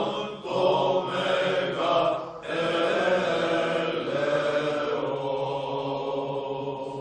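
Choral chant sung over a held low drone, as opening music; it starts fading out near the end.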